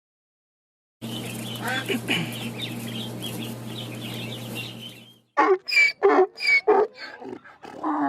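Domestic fowl calling: after a moment of silence, faint high chirping over a steady low hum, then from about five seconds in a quick run of loud, short calls, about eight of them.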